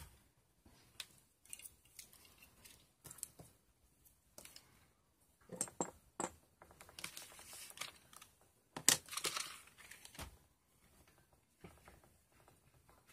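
Things being handled and moved around during tidying: irregular rustling and crinkling with scattered light knocks and clicks, and the loudest rustle about nine seconds in.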